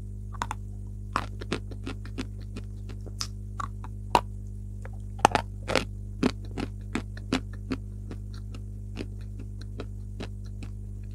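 Dry Everest chalk crunching as it is bitten and chewed close to the microphone: irregular crisp cracks, many over the first seven or eight seconds, then thinning out to a few soft clicks as the chalk breaks down in the mouth.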